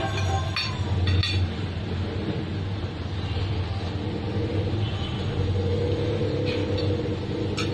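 A steady low hum and rumble, with a few light clinks of metal forks against the plate as people eat noodles.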